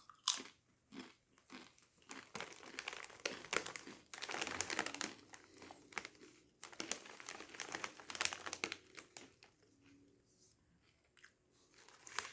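Doritos Twisted Queso chip bag crinkling and the tortilla chips crunching as they are chewed, in irregular crackly bursts with two longer stretches of rustling about four and seven seconds in.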